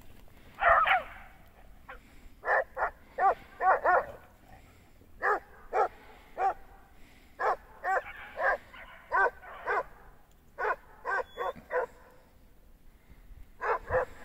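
Hounds barking in snow: about twenty short, bay-like barks with a rise-and-fall in pitch, coming in irregular clusters of two to four, with a brief lull shortly before the end.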